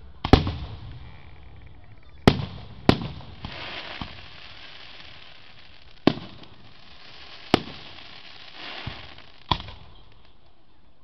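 Aerial firework shells bursting, about six sharp booms one to two seconds apart, each trailing off, with a hissing crackle between some of them.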